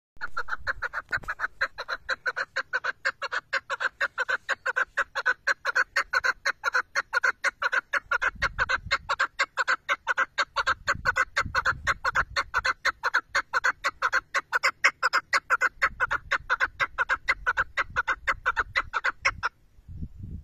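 Chukar partridge calling: a long, fast, even series of short notes, about five a second, that stops near the end.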